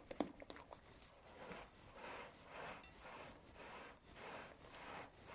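A spatula stirring thick banana bread batter in a mixing bowl: soft, rhythmic scraping and squishing strokes, about three every two seconds, with a few light clicks at the start.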